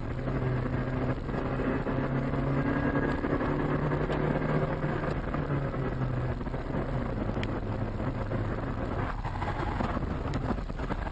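A car driving, recorded by a dashcam inside the cabin: a steady engine hum under continuous road noise.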